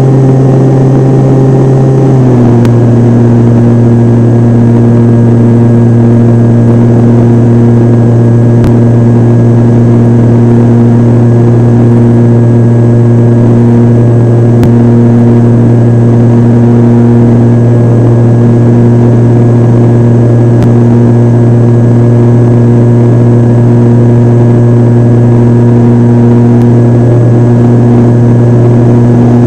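Model airplane's motor and propeller running in flight, heard up close from a camera on the wing as a loud, steady drone. Its pitch drops slightly about two seconds in as the motor slows a little, then holds steady.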